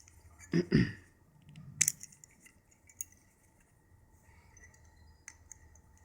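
A balisong (butterfly knife) being handled, its metal handles knocking and clicking: two close knocks just under a second in, a sharp metallic click near two seconds, then lighter clicks around three and five seconds.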